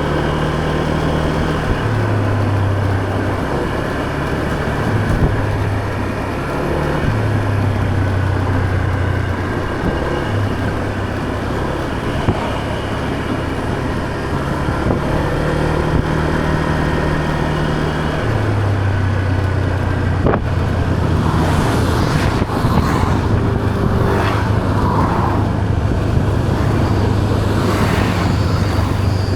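Motor scooter engine running while riding, its pitch stepping up and down several times with the throttle, over a steady rushing noise. From about two-thirds of the way through, some irregular louder sounds come in over the engine.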